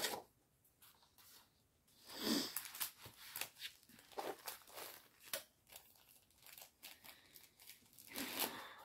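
Plastic packaging being torn open and crinkled by hand, in short scattered rustles, the strongest about two seconds in.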